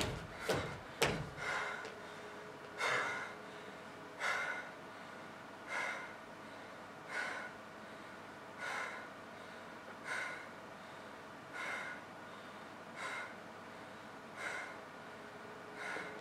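Two heavy thumps of feet landing on a stage floor in the first second, then a person's loud breathing after exertion. One breath comes about every second and a half, slowly growing quieter.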